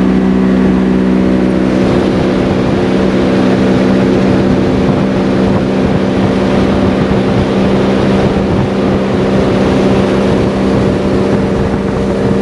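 Motorboat engine running steadily at speed, with the rush of water and wind over the hull.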